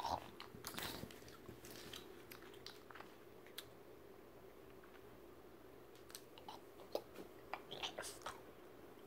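Faint rustling and scattered small clicks of plastic action figures being handled and moved over fleece blankets, close to the microphone, over a steady low hum.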